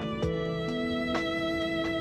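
Background music: a melody of held notes, moving to a new note about every half second.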